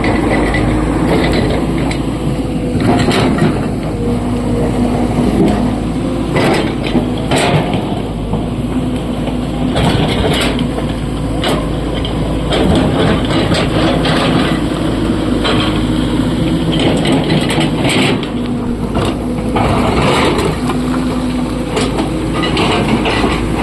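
SANY excavator's diesel engine running steadily under load, with irregular knocks and crashes of rock being dug and dumped into a tipper truck.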